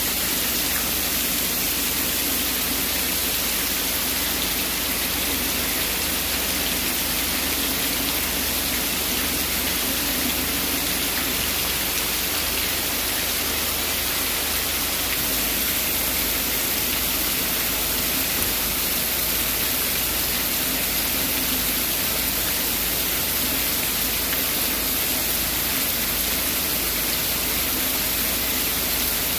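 Steady rain falling, an even hiss with no pauses or breaks.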